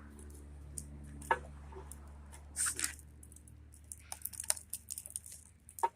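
Scattered clicks, snaps and small cracks of plastic and wire being pried and pulled off a TV picture tube's copper deflection yoke, quickening into a run of ticks near the end, over a steady low hum.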